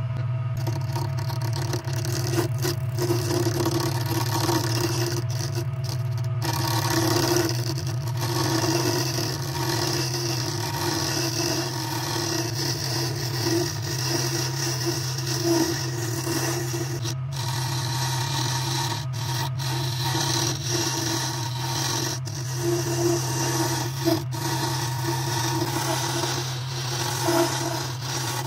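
Mini wood lathe running with a steady hum while a hand-held turning tool cuts the spinning black walnut pen blanks, a continuous scraping, rasping cut that swells and eases as the tool works along the blank.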